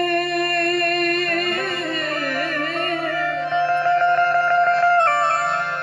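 Gujarati devotional bhajan with harmonium and singing: a long held note for about a second and a half, then an ornamented, wavering melodic run over a steady low drone.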